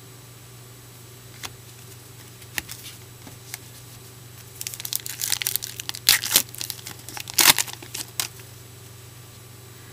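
Trading card pack wrapper crinkling and tearing open, with a few light clicks first, then a few seconds of dense crackling in the middle, loudest in two sharp bursts.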